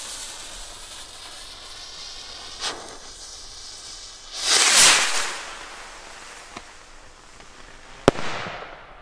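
Firework rocket: its fuse hisses, then it launches with a loud whoosh about halfway through, and near the end it bursts with a single sharp bang followed by a short crackle.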